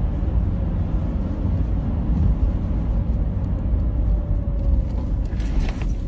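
Car being driven, heard from inside the cabin: a steady low rumble of engine and road noise, with a few sharp clicks near the end.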